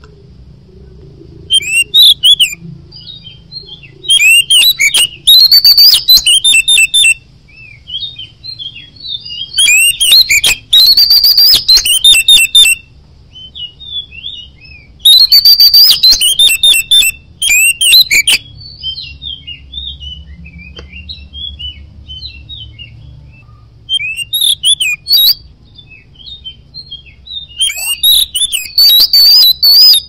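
Oriental magpie-robin (kacer) in full, vigorous song: loud, varied phrases break out every few seconds, with quieter scattered chirps and whistles between them. A faint low hum runs underneath.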